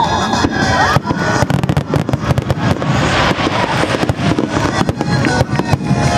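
Aerial fireworks bursting in a rapid barrage, many quick bangs and crackles one after another, with music playing underneath.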